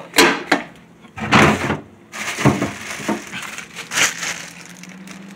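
Rummaging in a refrigerator: a crinkly plastic bag of lemons is handled and pulled off a shelf, heard as several short crinkling and rustling bursts. A low steady hum comes in near the end.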